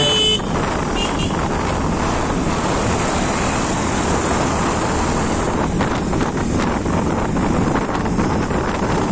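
Wind rushing over the microphone of a moving motorbike, a steady dense noise with engine and road rumble underneath.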